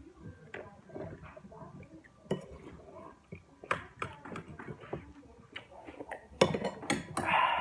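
Table eating sounds: spoons and forks clicking and clinking on plates and bowls, with chewing, as scattered light taps that grow louder and busier near the end.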